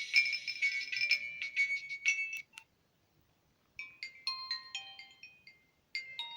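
Nokia 1661-2 mobile phone playing its built-in electronic ringtone melodies through its small speaker. One busy tune cuts off about two and a half seconds in, followed by a click and a second of silence, then a different, simpler tune starts.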